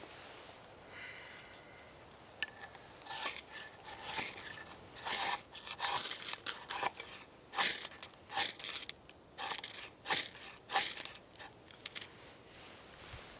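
A ferro rod (firesteel) scraped with the spine of a knife: about a dozen short, sharp rasping strikes, roughly one or two a second, starting about three seconds in. Each strike throws sparks onto feather-stick shavings to light the fire.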